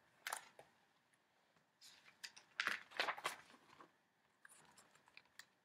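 Paper pages of a large picture book being turned and the book handled: a few soft rustles and taps, most of them about two and a half to three and a half seconds in.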